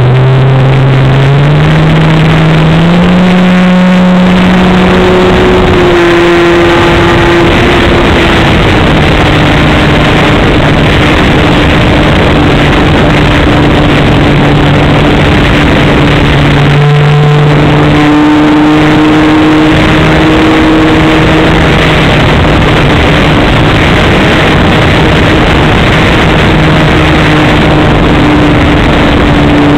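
Electric motor and propeller of a Carbon-Z Yak 54 RC aerobatic plane, heard very loud from a camera mounted right behind the prop. The prop whine climbs in pitch as the throttle opens for takeoff in the first few seconds, then runs on in flight, shifting in pitch as the throttle changes, over heavy wind rush.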